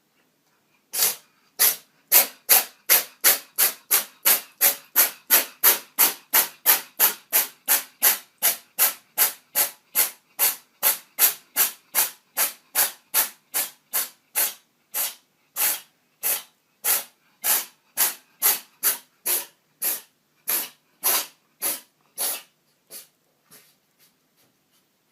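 A cat in a long sneezing fit: short, sharp sneezes about two a second, one after another, growing weaker and further apart near the end.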